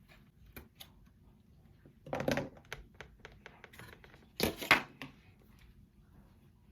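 Handling noises from a false-eyelash pack: light clicks and taps, with two louder rustling scrapes about two seconds in and around four and a half seconds.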